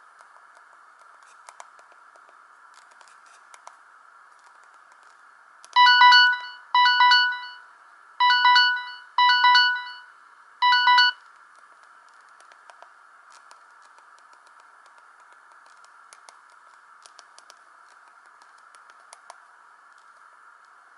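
Samsung GT-E1050 mobile phone playing a short ringtone melody: five quick electronic notes, two pairs and then a single one, each fading fast, over a steady faint hiss.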